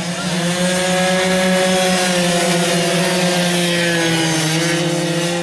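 Racing motorcycles' engines held at high revs, a loud, steady buzzing whine that rises slightly in pitch just after the start and eases down a little about four and a half seconds in.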